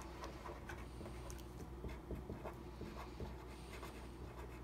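Marker pen writing on paper: faint scratching strokes of handwriting, over a low steady hum.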